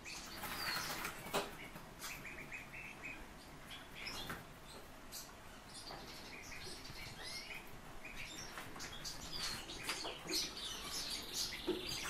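A thrush bathing in a shallow tub of water, flapping its wings and splashing, mostly in the first second and a half. Short chirps and calls from birds sound throughout, with a fast rattling trill near the end.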